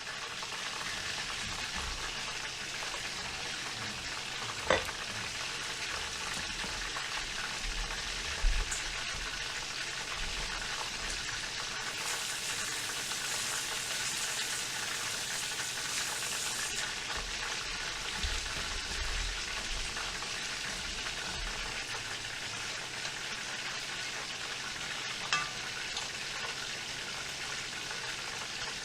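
Food frying in a pot on the stove: a steady sizzle, with three light knocks of a utensil along the way.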